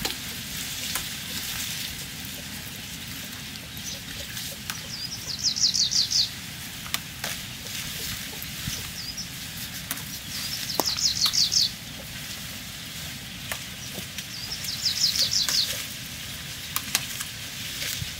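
A songbird sings a short rapid trill of about ten quick notes, lasting about a second, three times at intervals of about five seconds. Scattered light clicks and a low steady outdoor rumble lie underneath.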